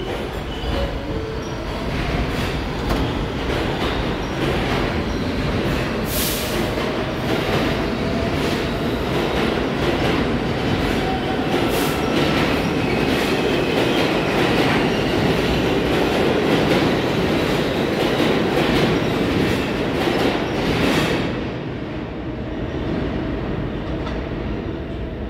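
New York City Subway R160 train pulling out of a station and speeding past: a steady rumble of steel wheels on rail, full of rapid clicks over the rail joints, growing louder. It drops away sharply about 21 seconds in as the last car clears.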